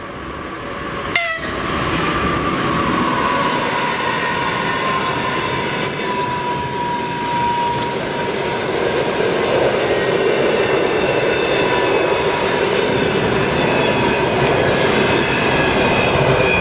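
A passenger train hauled by an EP2K electric locomotive running past with a loud, high whistling. Several sustained whistling tones slowly sink in pitch over the rumble of the train. A sharp bang comes about a second in.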